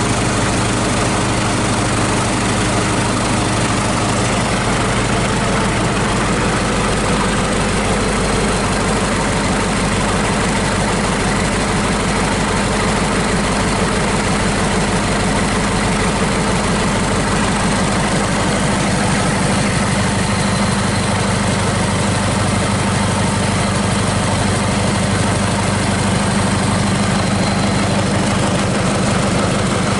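Hyundai D4DD four-cylinder diesel engine idling steadily during a test run out of the vehicle.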